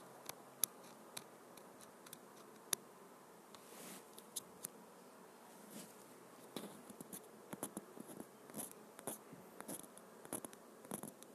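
Faint, scattered clicks and light scratching: handling noise from a phone's screen being tapped and swiped, picked up by its microphone. The clicks come more often in the second half.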